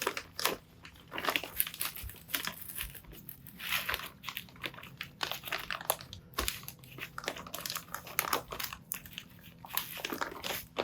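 Plastic bag crinkling and rustling as it is handled and pulled over a freshly greased bearing, in short, irregular crackles.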